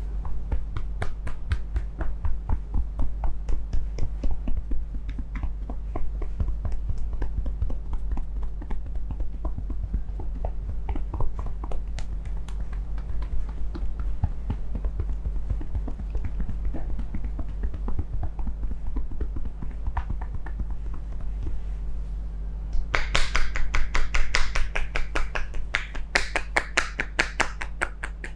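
Hands massaging a man's head: many quick, light taps and rubs on the scalp over a low steady hum. About 23 seconds in, a fast run of sharper, louder hand strikes on the head begins, a percussive tapping massage.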